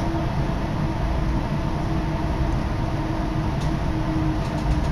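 Inside a car of the Chiba Urban Monorail, a suspended, rubber-tyred monorail, while it is moving: a steady running rumble with a faint, even whine.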